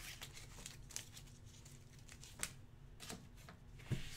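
Trading cards being handled on a table: faint rustling with a few soft taps, the most distinct about two and a half seconds in and near the end.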